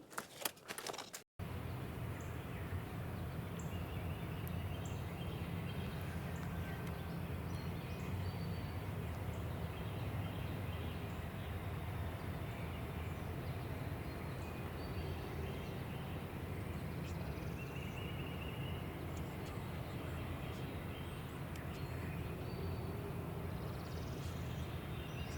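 About a second of footsteps, then an abrupt cut to a steady low rumble of outdoor background noise with faint, scattered bird chirps.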